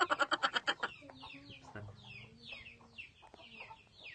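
Young chickens peeping: a run of high, short, falling peeps, about three a second. It opens with a loud, rapid trilling call that dies away about a second in.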